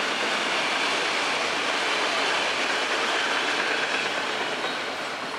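Freight train's autorack cars rolling past on the rails, a steady wheel-on-rail noise that begins to fade about four seconds in as the end of the train goes by.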